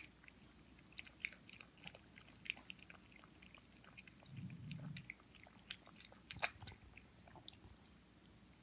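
Australian Terriers chewing and gnawing: quiet, irregular small clicks and crunches, with a brief low rumble about halfway through.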